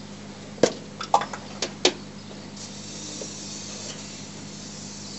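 A few sharp clicks, then from about two and a half seconds in a steady hiss of an aerosol spray, lubricating the rubber ring seals of the PVC sewer pipe joint.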